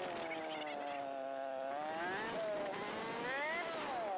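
Honda motorcycle engine heard from the rider's seat while riding: its note drops as the bike slows, then rises twice as the throttle is opened again, over steady road and wind noise.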